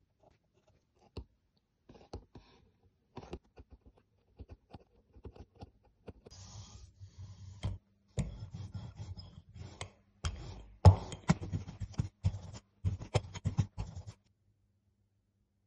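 A steel graver cutting fine lines into an end-grain wood block: sparse small scratches and clicks. From about six seconds in, an ink roller rolling back and forth over the block with dense crackling clicks over a low hum, loudest around eleven seconds, stopping a second or two before the end.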